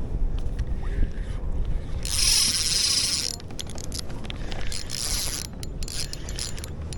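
Fishing reel: a hiss of line running off the spool for about a second and a half, followed by scattered light clicks, over a low wind rumble on the microphone.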